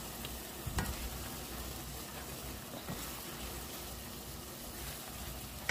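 Onions and ginger sizzling steadily in melted butter in a pot, with a light knock about a second in.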